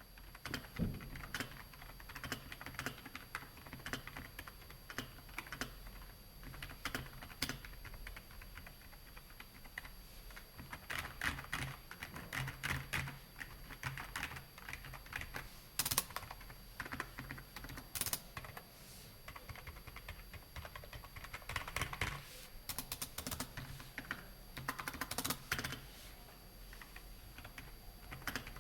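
Typing on an iMicro KB-US819EB computer keyboard: a fast, irregular run of key clicks with a few louder strokes, such as the space bar or other large keys bottoming out.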